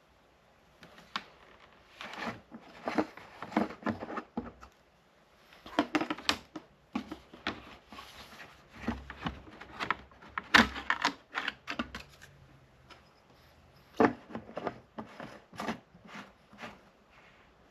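Hand tools and metal parts clicking and clattering in irregular clusters of sharp knocks during the teardown of an ATV. The loudest knocks come about ten and fourteen seconds in.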